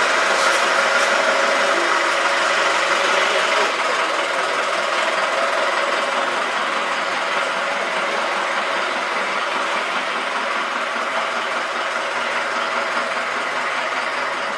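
Ford Transit van's engine running as the van pulls slowly away, a steady engine sound that grows slightly quieter as it moves off.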